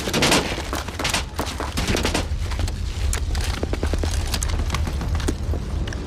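Dense small-arms gunfire in a firefight: many rapid overlapping shots throughout, over a steady low rumble.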